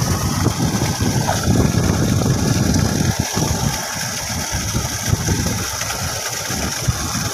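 Muddy water gushing from a borewell submersible pump's curved discharge pipe and splashing onto the ground: a steady rushing hiss over a heavy, uneven low rumble.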